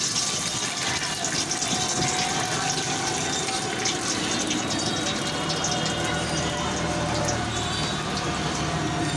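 Potato spiral deep-frying in hot oil: a steady sizzling hiss dotted with fine crackles.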